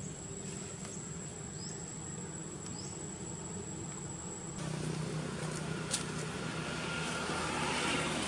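Outdoor ambience: a steady high insect whine over a low rumble like distant traffic, with two short rising chirps. About four and a half seconds in the whine stops suddenly and the rumble grows louder, with a single sharp click about six seconds in.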